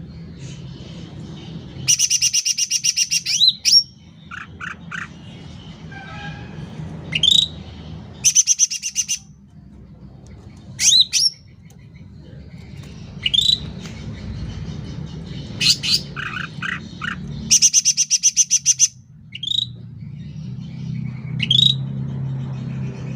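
Cucak ranting songbird calling loudly. It gives three fast, rattling chatters of about a second each, plus short sharp whistled notes that sweep upward, repeated every few seconds. A steady low hum runs underneath.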